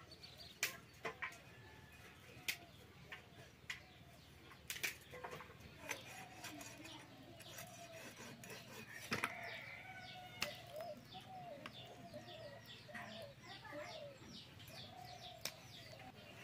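Birds chirping and calling, with a run of quick repeated descending chirps in the middle. Sharp clicks and snaps come every few seconds from goat meat being cut by hand on an upright blade and a cauliflower being broken into florets.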